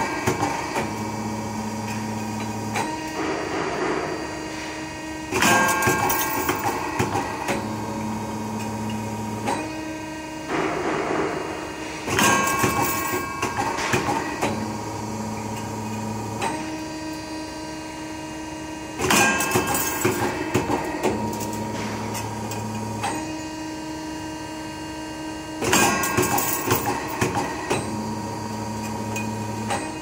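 Automatic wire ring making machine running through its forming cycle. About every seven seconds there is a burst of metallic clattering and knocks, followed by a steady low hum, then a steadier higher tone until the next burst.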